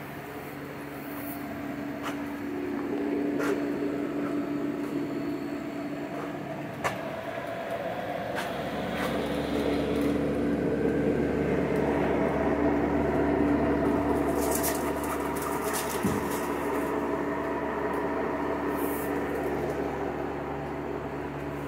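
Steady mechanical hum with a held tone, swelling louder a few seconds in, with a few sharp clicks and knocks and a couple of brief hisses.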